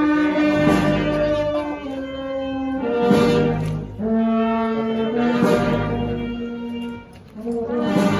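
Brass band playing a slow processional march with long held notes. A percussion stroke falls about every two and a half seconds.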